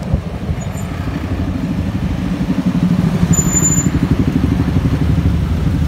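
Yamaha scooter's small single-cylinder engine running at low revs with a fast, even beat as the scooter slows down in traffic.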